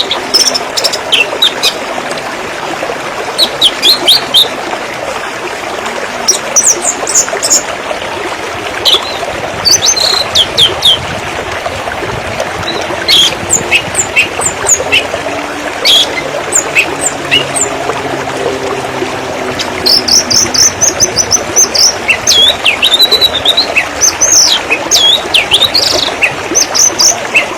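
River water flowing in a steady rush, with birds chirping over it again and again. The bird calls are short, high chirps that stand out as the loudest sounds.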